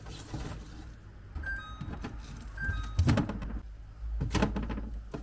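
Groceries being put into a fridge: items knocking as they are set down on the shelves, loudest about three seconds in and again near the end, with two brief high squeaks before them.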